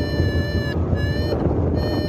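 Wind rushing over the microphone during a paraglider flight, with a paragliding variometer's electronic tone sounding in long beeps that break off twice and drift slightly in pitch.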